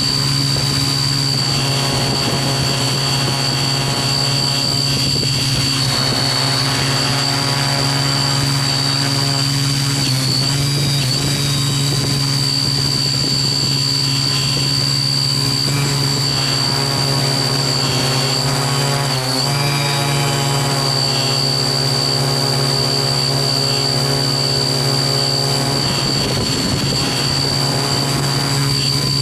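Small multirotor drone's motors and propellers running in flight: a steady loud buzzing hum with a constant high whine, its pitch briefly shifting about ten and nineteen seconds in.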